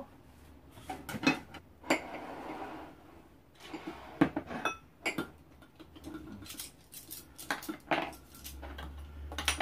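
Dishes and cutlery clinking and knocking on a table as bowls, a lidded pot and chopsticks are set down and handled, in a scattered series of separate clinks.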